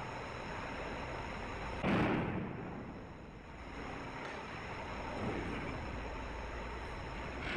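A heavy steel clamshell grab on a port crane, about 1.5 tons, drops onto a pile of sulphur in a ship's hold with one sudden heavy thud about two seconds in, over steady machinery noise. A smaller knock follows about five seconds in.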